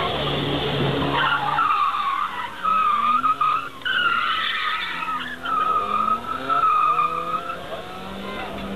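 Car tyres squealing in several long, wavering stretches as the car is driven hard through tight manoeuvres, while its engine revs up and down beneath.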